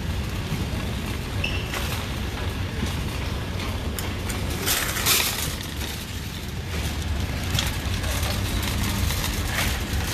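Metal shopping cart pushed over a concrete floor, its wheels rumbling and wire basket rattling, with a louder rattle about five seconds in.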